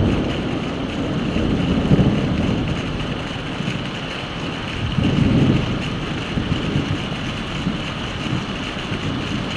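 Heavy rain falling steadily while thunder rumbles, the rumble dying away and then swelling again about five seconds in.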